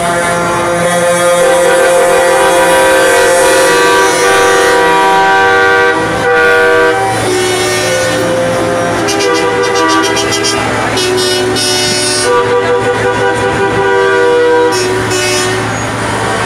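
Several truck air horns sounding at once in long, overlapping blasts of different pitches, each starting and stopping on its own, with a quickly wavering blast in the last third.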